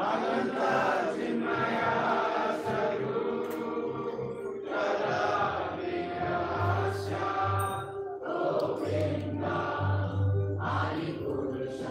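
Devotional chanting by a group of singers with instrumental accompaniment, sung in long phrases with short breaks and a rhythmic low beat underneath.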